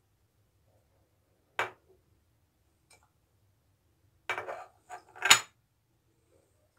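Metal spoon clinking against ceramic dishes while ground almonds are spooned onto a plate: a single clink, then a quick cluster of clinks a few seconds later, the loudest near the end.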